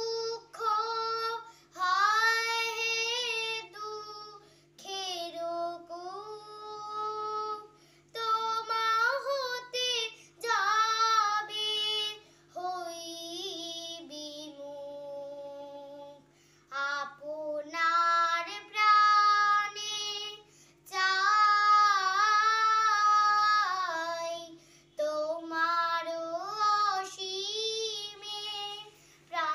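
A young girl singing solo, with long held notes and slides between them, in phrases separated by short breaths. A faint steady hum lies underneath.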